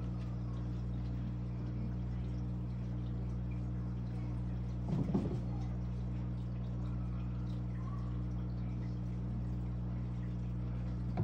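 Steady low hum of aquarium equipment such as a filter or air pump, with faint running water in the tank. A brief muffled sound comes about five seconds in.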